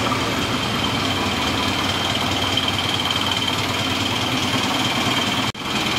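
Steady drone of a ferry's engines and machinery, with a thin high whine held over it. It cuts out for an instant near the end.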